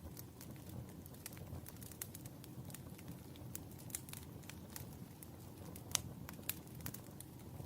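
Wood fire burning in a fireplace: a steady low rumble of flames with irregular sharp crackles and pops, one louder pop about six seconds in.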